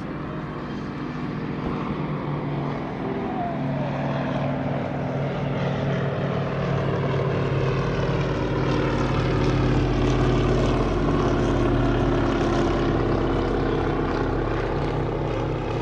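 Kamov Ka-27-family coaxial-rotor helicopter running, its twin turboshaft engines whining with the rotors chopping. The sound grows louder over the first half, and a deep rumble joins about halfway through.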